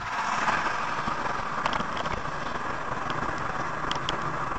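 Steady road and wind noise of a car at highway speed, picked up by a dashcam inside the cabin, with a few faint clicks.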